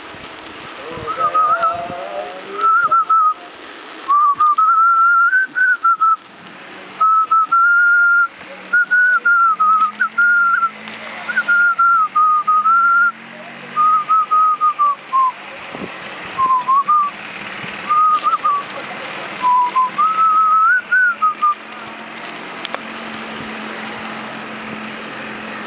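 A person whistling a tune in short, wavering melodic phrases, stopping a few seconds before the end. A low steady hum sits underneath from about the middle on.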